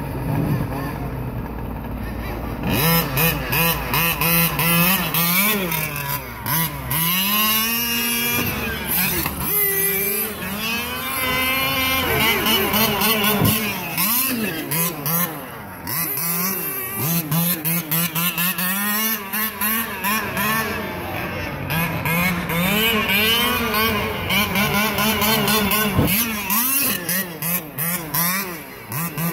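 Radio-controlled short-course truck's motor revving up and falling back over and over as it is driven hard, starting about two seconds in, with many short clicks throughout.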